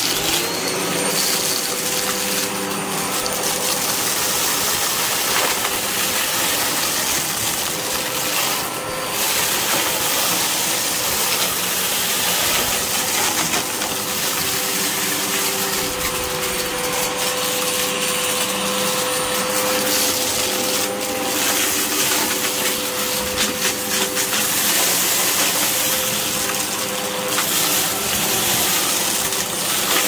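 Hoover bagless upright vacuum cleaner switching on and running steadily while it crunches up scattered seed-like grit, with the debris crackling and rattling up into the dust cup.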